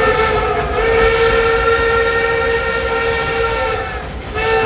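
Baldwin steam locomotive's whistle blowing a long, steady, many-toned blast. It breaks off briefly near the end, then sounds again, over the low rumble of the train running.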